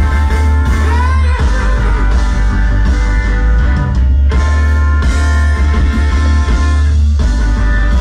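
Live reggae band playing loud through a concert sound system, with a heavy bass line and held chords that change about four and seven seconds in.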